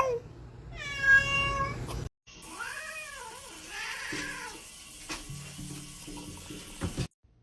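A domestic cat meowing: one drawn-out meow falling in pitch about a second in, then, after a short break, a few shorter rising-and-falling meows.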